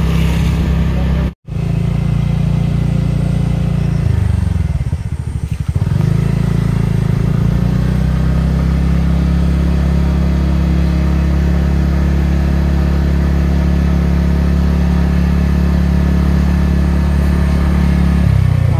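Motorcycle engine running steadily at riding speed, heard from on the bike. About four seconds in the engine note drops and then picks back up by about six seconds, as the throttle is eased and reopened. The sound cuts out briefly about a second and a half in.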